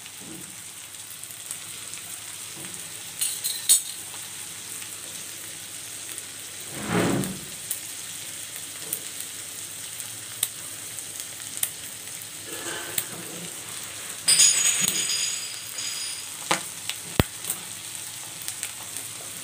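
Marinated liver pieces frying in hot oil in an iron kadai: a steady sizzle with scattered clicks and pops. A short low thud comes about seven seconds in, and a brief high-pitched rattle about three quarters of the way through.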